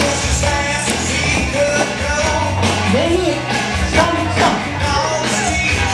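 Music with a singer over a steady beat.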